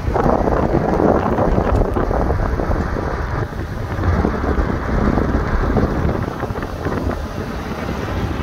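Loud, gusting wind buffeting the microphone, with the low rumble of a car moving slowly along the road.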